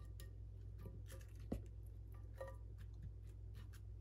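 Potato and carrot pieces dropping from a plastic bowl into a glass baking dish: faint scattered clicks and taps, with one sharper knock about one and a half seconds in.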